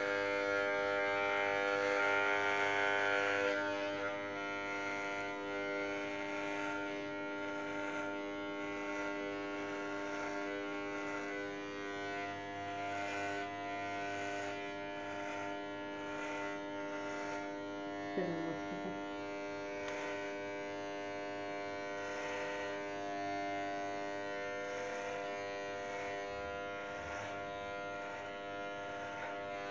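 Corded electric hair clippers buzzing steadily as they shave hair off a head, a little louder and brighter for the first few seconds.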